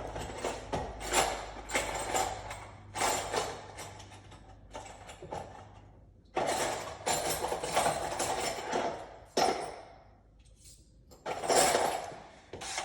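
Small metal tools being handled, clinking and rattling in three spells of short knocks, with quiet gaps between.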